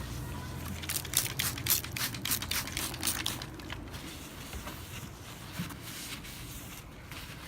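Toothpaste being wiped off a car headlight lens: a quick run of rubbing strokes, about three a second, from about a second in until nearly four seconds in, then fainter.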